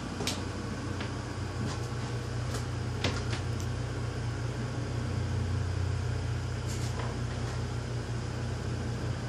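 Hunter Infiniti 52-inch ceiling fan running on high speed: a steady motor hum with the rush of moving air, and a few faint clicks.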